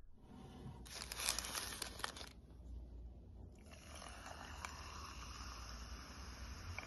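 A brief crackling, crinkling noise, then from about halfway a fizzy soft drink poured over ice cubes in a glass: a steady fizzing hiss with a couple of light ice clicks.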